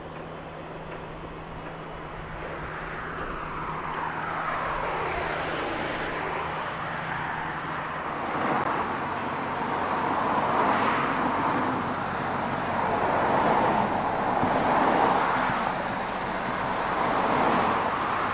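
Road traffic: several cars passing one after another, building up a few seconds in and peaking every couple of seconds, with a faint steady low hum in the first half.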